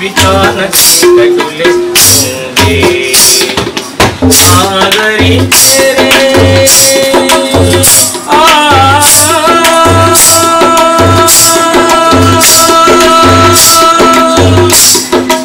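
Tabla played in a steady rhythm, the deep bass drum stroking regularly under the higher pitched drum, with a hand-held rattle shaken in time. A man sings over it, holding one long note in the second half.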